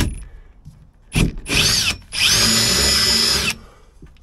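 Electric drill drilling a hole in a fibreglass boat deck, run in short trigger bursts and then one steady run of about a second and a half. The motor whine rises and falls with the trigger.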